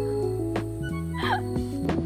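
Background music made of held notes that change every half second or so.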